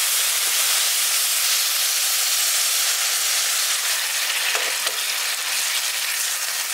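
Bottle gourd leaves, stems and potatoes sizzling in a hot wok with a little water just added, stirred with a wooden spatula. The hiss is steady and eases slightly near the end.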